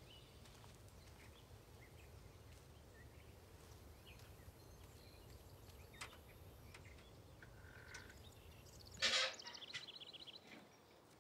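Faint rural outdoor ambience with a low rumble and a few soft high chirps. About nine seconds in, a wooden door is pushed open with a loud knock, then gives a short creaking rattle.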